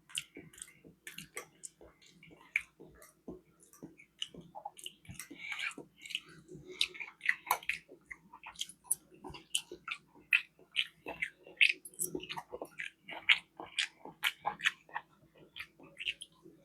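Close-miked chewing and mouth sounds: wet smacks and clicks of someone eating saucy barbecue chicken, in an irregular run.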